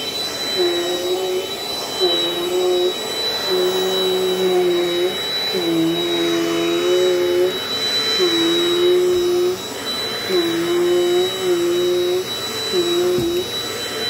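Dirt Devil Dynamite upright vacuum cleaner running on carpet: a steady high motor whine over a low hum that dips in pitch briefly about every second and a half as the vacuum is pushed back and forth.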